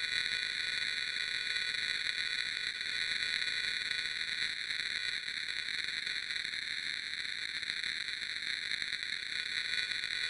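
Static sound effect: a steady, thin, tinny hiss of noise with its weight in the upper middle of the range and little low end.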